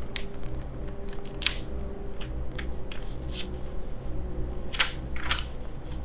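A folded paper letter being opened by hand, with a handful of sharp crackles and rustles as its wax seal is broken and the stiff paper unfolds.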